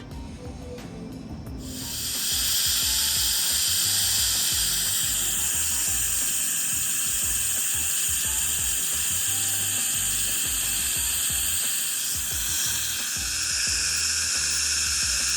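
Dental chairside equipment hissing loudly and steadily, starting about two seconds in, its tone shifting slightly near the end.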